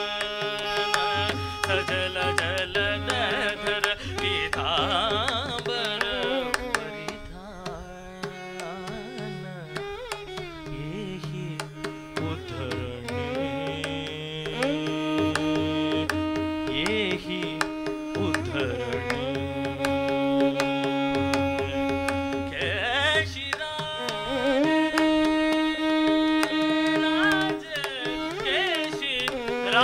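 Karnatik concert music: voice and violin carry a melody of held notes and gliding, ornamented turns, over mridanga strokes.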